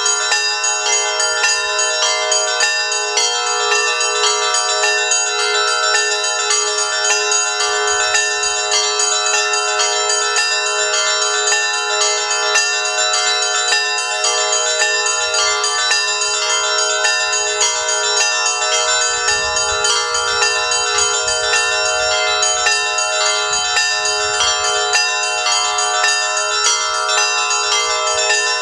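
Russian Orthodox church bells ringing a continuous peal: several bells struck over and over in a steady, fast pattern, their tones overlapping and ringing on.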